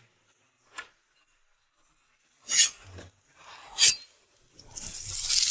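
A few short, sharp noises, then a longer hissing rush near the end.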